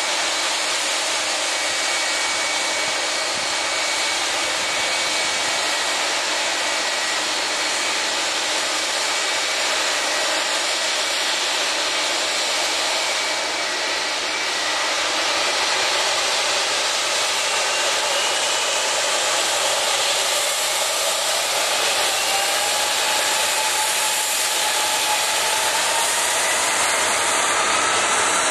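Jet airliner's engines running at high power, a steady rushing noise with whining tones that rise in pitch over the last ten seconds or so as the engines spool up for departure.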